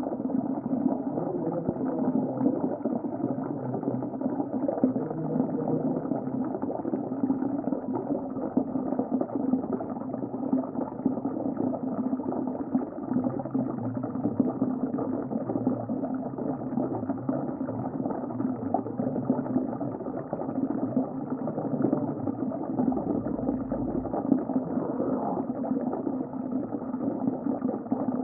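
Underwater ocean ambience: a steady, dull rushing with a constant bubbling crackle, nothing high in it.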